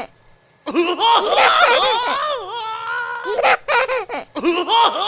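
High-pitched laughter in long peals, starting after a short pause about two-thirds of a second in, with a brief break shortly before the end.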